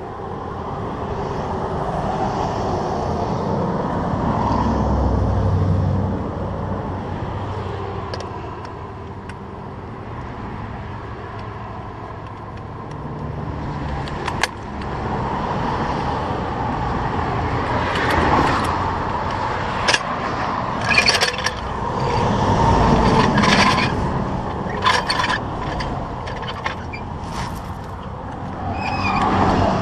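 Highway traffic passing at speed, its noise swelling and fading as vehicles go by. There is a sharp knock about halfway through and a cluster of metallic clanks and scrapes in the later part.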